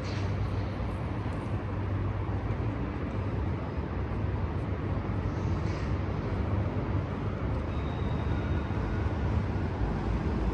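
Steady city background noise with a constant low hum underneath, like traffic or building machinery, and no single event standing out.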